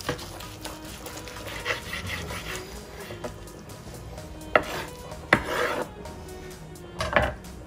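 A long carving knife slicing through the crusted, bone-in rib roast on a wooden cutting board, with three sharp knocks of blade and meat against the board in the second half.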